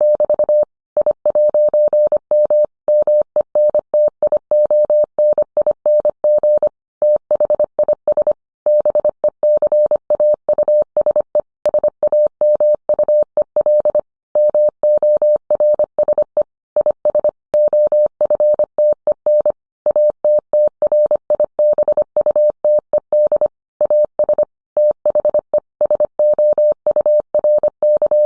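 Morse code sent as a single steady mid-pitched tone, keyed on and off quickly in short and long elements (dits and dahs), with brief gaps between characters and words.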